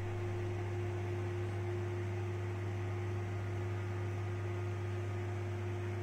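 IFB 30BRC2 convection microwave oven running in grill mode: a steady hum over an even hiss, with a fainter higher steady tone.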